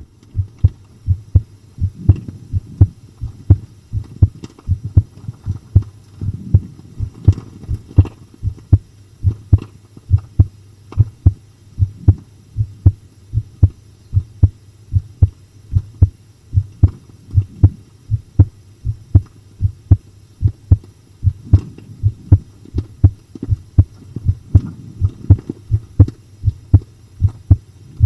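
Human heartbeat: a steady, even rhythm of short low thumps in lub-dub pairs, pounding.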